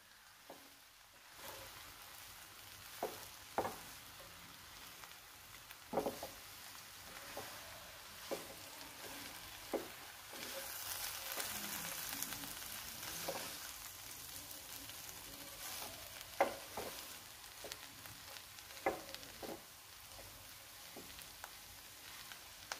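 Chapati strips, vegetables and masala being stirred and tossed with a spatula in a nonstick pan: a soft, steady sizzle, a little louder midway, with scattered knocks and scrapes of the spatula against the pan.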